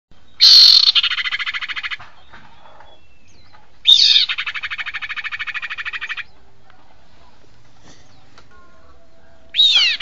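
Female sirpu (common iora) calls played as a bird-trapping lure recording. Three calls, each a sharp downward-sweeping note that runs straight into a fast, buzzy rattle lasting one and a half to two seconds, over a steady hiss.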